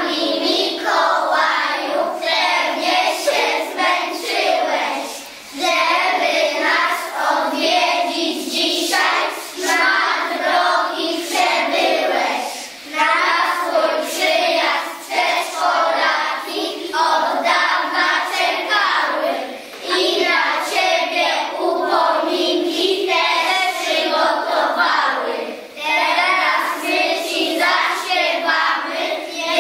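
A group of young children singing a song together in unison, in phrases broken by short breaths every few seconds.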